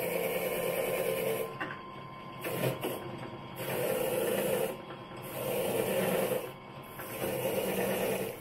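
Drill press spinning a wire cup brush as a painted steel fastener is held against it and scrubbed clean: a steady scratchy whirr that swells while the part is pressed to the brush and drops back in short dips as it is eased off, several times over.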